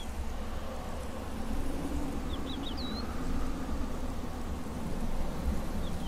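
Outdoor desert ambience: a steady low rumble of wind noise, with a short run of high bird chirps about two and a half seconds in.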